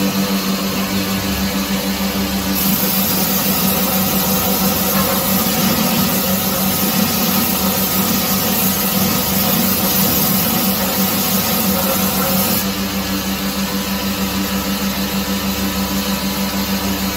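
Belt grinder running steadily, its electric motor and belt giving a constant hum, while a forged steel knife blade is surface ground to flatten it. From about two and a half seconds in to about twelve and a half seconds in, a louder hissing grind rises over the hum, then falls away to the plain running sound.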